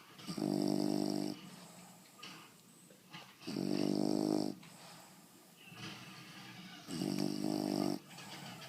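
English bulldog snoring in its sleep: three loud, pitched snores about a second long each, roughly three and a half seconds apart, with quieter breaths between them.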